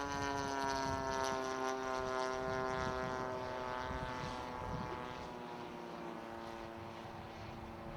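A radio-controlled model Focke-Wulf 190 flying: its engine and propeller drone steadily, the pitch slowly sinking and the sound fading a little about halfway through.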